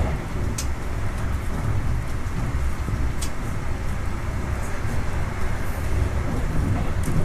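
Steady low rumble of a moving train heard from inside the carriage, with a few brief high clicks or rattles now and then.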